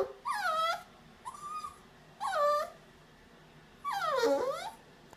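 Cockapoo puppy whining, reluctant to go down the stairs: a string of short high whines, most falling in pitch, the longest near the end dipping and then rising again.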